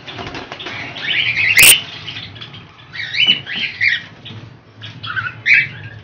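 Caged cockatiels giving short, repeated chirping calls, with a flurry of wing-flapping near the start and one sharp knock about one and a half seconds in.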